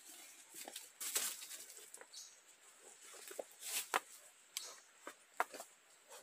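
Rustling of a backpack and its straps as it is lifted on and adjusted, with a few sharp clicks and feet shuffling on dry leaf litter.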